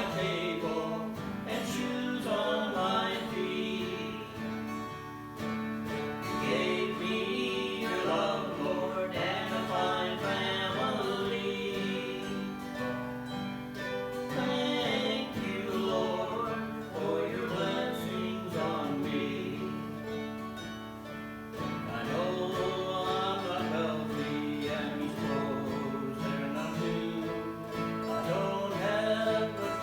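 A song with acoustic guitar accompaniment and singing.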